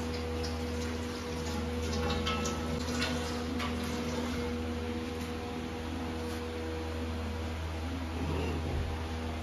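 Steady low machine hum, with a few faint clicks and rustles about two to four seconds in.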